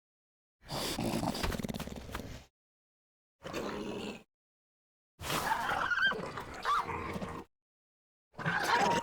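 Sound-designed velociraptor vocalizations: four separate calls, each cut off into dead silence. They mix a low growl with high chirping, squealing cries. The first and third calls are the longest, about two seconds each.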